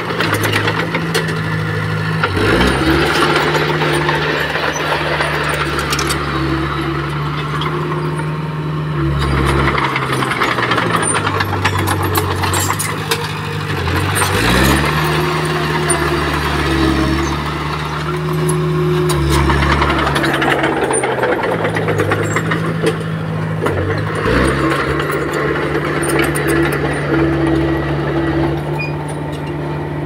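Komatsu D20P bulldozer's diesel engine working in repeated cycles: the revs climb three times, hold high for several seconds under load and then drop back, with metallic rattling throughout.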